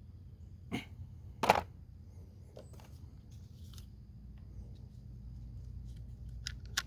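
A few sharp clicks and taps from small parts and cord being handled at a recoil pull starter, the loudest about a second and a half in, over a steady low hum.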